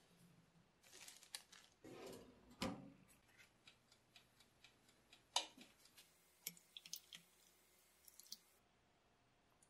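Faint kitchen handling sounds: soft rustling of parchment paper as croissant dough is set on a metal baking tray, then scattered light clicks and taps, with one sharper click about halfway through.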